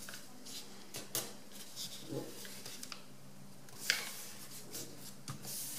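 A sheet of A4 paper rustling under the fingers as a fold is smoothed and pressed into a crease, in a few short rustles, the loudest about four seconds in, over a faint steady hum.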